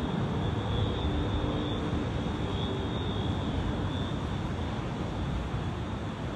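Steady low rumble with hiss over it: outdoor ambience of wind and distant city traffic.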